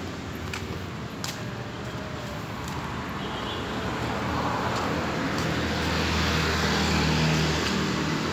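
Street traffic: a motor vehicle's engine and tyre noise building as it approaches along the road, loudest about seven seconds in, then easing slightly.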